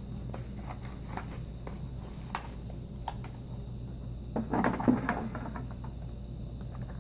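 Handling noises from a small cardboard accessory box: scattered light taps and clicks, then a louder rustling knock about four and a half seconds in, over a steady low hum.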